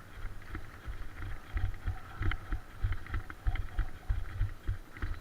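Irregular low thumps of footsteps as a player moves, several a second, with light clicks and rattles of gear.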